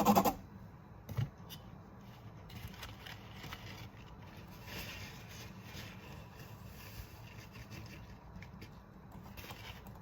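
Quiet scraping and rubbing of kitchen utensils, with a single knock about a second in.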